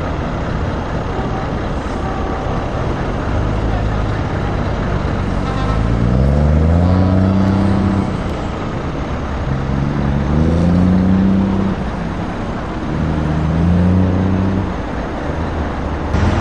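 Scania S730's 16-litre V8 diesel pulling away under load, its engine note climbing in pitch three times as it accelerates through the gears, dropping back at each change.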